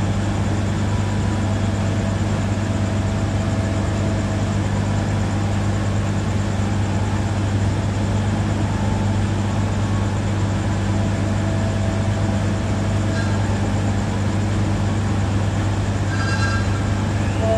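Diesel train engine idling: a steady low hum that does not change, with a brief high-pitched tone about a second before the end.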